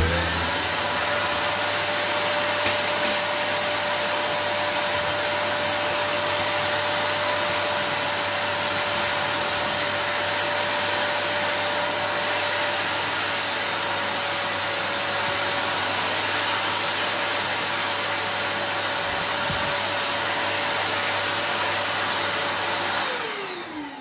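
Parkside PWD 20 A1 1300-watt wet and dry vacuum cleaner switched on and running steadily: a rush of air with a whine over it. Near the end it is switched off, and the whine falls in pitch as the motor winds down.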